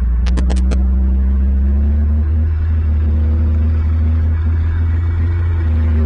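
A steady low engine-like rumble, with a faint hum whose pitch creeps slowly upward. A quick run of four sharp clicks comes just after the start.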